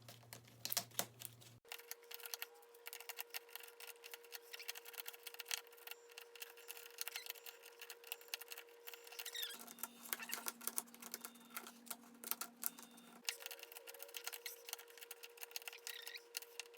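Rubik's cube layers being turned rapidly one-handed: a dense run of quick plastic clicks and clacks, over a faint steady hum.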